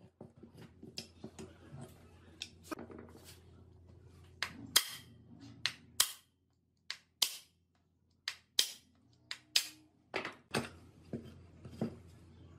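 Steel hammer striking a punch against the aluminium crankcase of an old STIHL two-stroke chainsaw, knocking the crankcase apart. Lighter knocks and clatter in the first few seconds, then about a dozen sharp, loud blows at uneven intervals.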